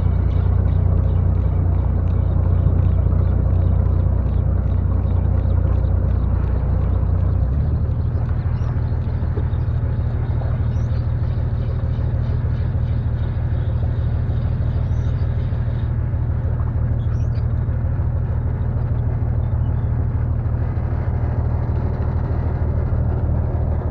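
Fishing boat's engine running steadily under way, a deep drone whose note shifts up slightly about seven seconds in.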